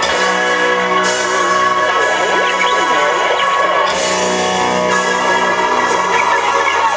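Live rock band playing loudly through a PA: electric guitars, drums and keyboards.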